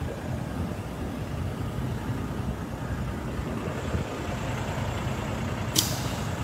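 Semi-truck tractor's diesel engine idling with a steady low rumble. A single sharp click near the end.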